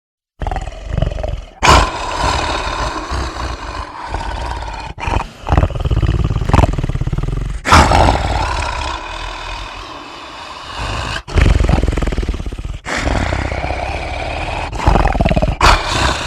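Monster roar sound effect: a string of long, loud creature roars and growls, each lasting a few seconds, separated by short breaks.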